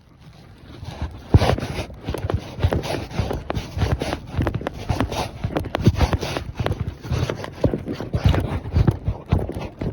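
A ridden horse's hooves clip-clopping on the ground. The hoofbeats start about a second in and then come as a quick, continuous run of strikes.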